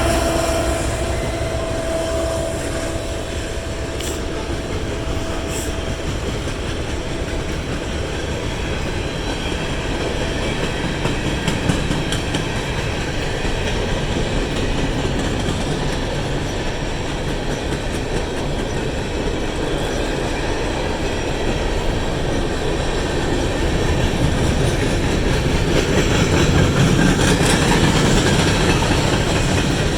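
A train rolling past, its cars' wheels clicking over the rail joints in a steady rumble that grows a little louder near the end. The last of a locomotive horn note fades out in the first few seconds.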